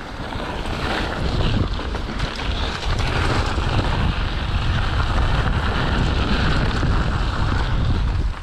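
Wind rushing over the microphone of a mountain bike riding fast down a dirt trail, with a deep rumble and scattered clicks and rattles. It swells about a second in and cuts off sharply at the end.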